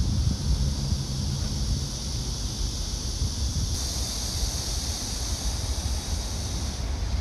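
Outdoor ambience: wind rumbling on the microphone over distant road traffic, with a steady high hiss that gets louder a few seconds in.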